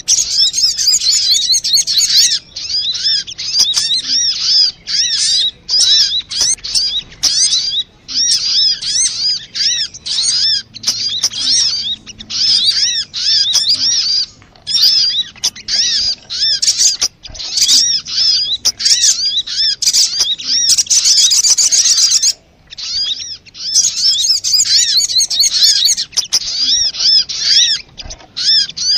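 A sogon (sogok ontong), a sunbird, calling in a fast, high twitter of repeated chirps that runs on almost without pause, with brief breaks a few times. This is the bird's excited calling, used as a lure to provoke other sogon into singing.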